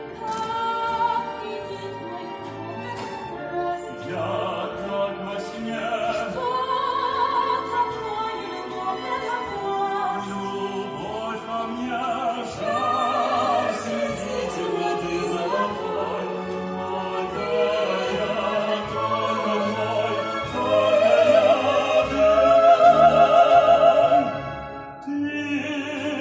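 Operatic singing with strong vibrato over orchestral accompaniment. The music grows loudest near the end, then drops off suddenly.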